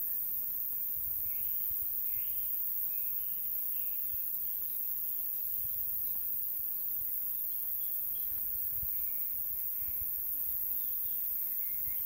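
Crickets chirring in a steady, high-pitched hiss, with short bird chirps scattered through it.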